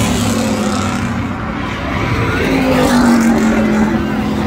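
Pickup-style race trucks running hard around a paved oval, their engines loud and continuous. About two and a half seconds in, one engine's note slides steadily down in pitch.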